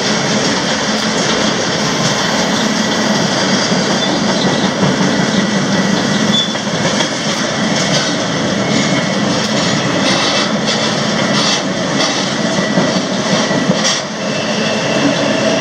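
Freight train rolling along the track: a steady, loud rumble and rattle of the cars on the rails, with a few sharp clicks and knocks in the second half.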